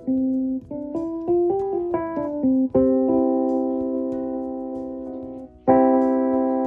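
Roland FP-30X digital piano played: a quick run of single notes moving up and down the keyboard, then a chord held and left to fade slowly, and another chord struck near the end.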